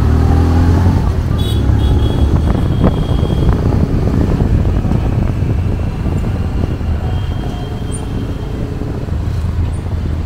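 Road traffic with motor vehicle engines running: a loud, steady low hum under a haze of street noise.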